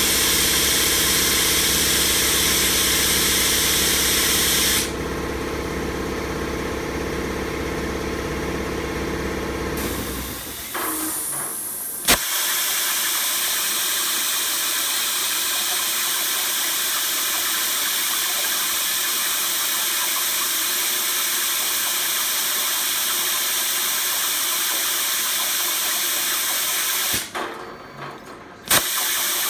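Razorweld 45 plasma cutter on a CNC machine torch hissing steadily while cutting 16-gauge sheet, with a low motor hum under it. About five seconds in the hiss thins, and the hum winds down a few seconds later. A sharp click about twelve seconds in brings back a steady cutting hiss. Near the end the hiss drops out and returns with another click, fitting the torch losing its arc and re-lighting.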